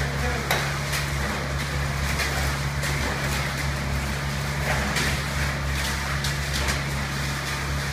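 Engine of a concrete pump running with a steady low drone while concrete is pumped through the hose, with scattered short knocks and scrapes on top.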